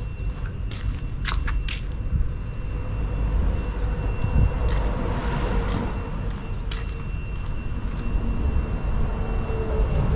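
Outdoor background: a steady low rumble with a faint, steady high tone over it, and a few sharp clicks, three in quick succession about a second and a half in and single ones later.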